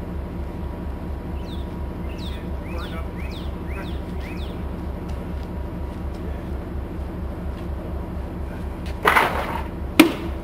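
Wooden boards handled beside a steam locomotive: a loud clattering scrape about nine seconds in, then a sharp wooden knock a second later. Under it runs a steady low, evenly pulsing throb, with a few short falling chirps two to four seconds in.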